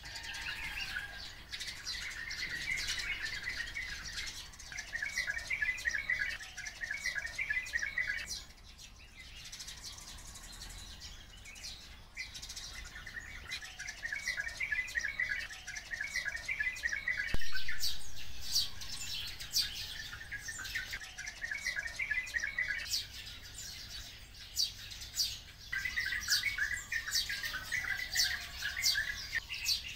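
Oriental white-eyes and sparrows chirping and twittering, the twittering coming in bouts with many short sharp calls between. Once, just past halfway, a single sharp click.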